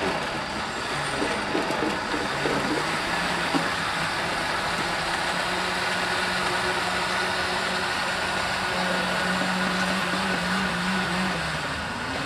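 Commercial countertop blenders running at speed, blending fruit smoothies: a steady whirring rush over a low motor hum whose pitch steps up slightly about two-thirds of the way through.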